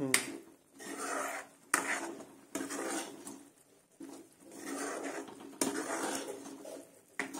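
Steel spoon stirring thick curry masala around a metal kadai, scraping along the pan in sweeps, with several sharp knocks of the spoon against the pan's side.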